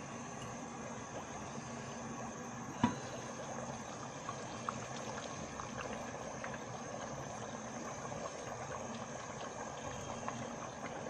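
Pot of goat head curry boiling in water, a steady bubbling with small pops and crackles. One sharp clink comes about three seconds in.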